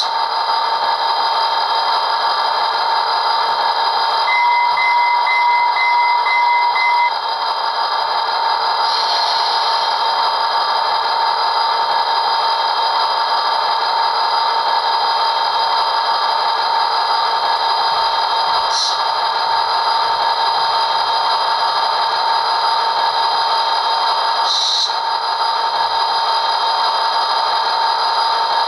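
HO scale model diesel locomotive's ESU LokSound decoder playing its diesel engine sound through the model's small speaker as it runs at slow speed: a loud, steady running sound. An extra steady tone joins for about three seconds some four seconds in, and short higher sounds come three times later on.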